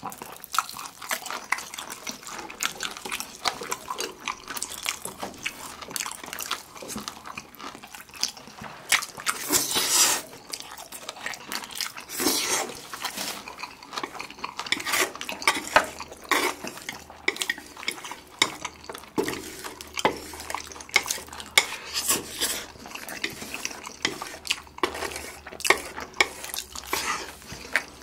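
Close-miked eating sounds: wet chewing, lip smacks and slurping of Chapagetti black-bean instant noodles, with wooden chopsticks clicking and scraping on a ceramic plate. Two longer slurps stand out, about ten and twelve seconds in.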